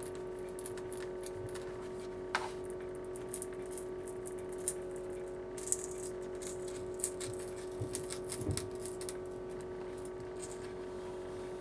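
Pocket knife blade clicking and scraping as it is worked around the edge of a tablet's plastic frame to pry the glued digitizer loose: scattered sharp ticks and a few short scrapes, the clearest about two and a half seconds in and again near the middle. A steady electric hum sits underneath.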